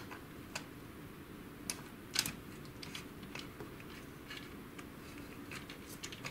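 Light plastic clicks and taps as a white plastic gear is fitted onto its shaft on an HP LaserJet 6L's paper-feed assembly: a scattered handful, the loudest about two seconds in, over a faint steady hum.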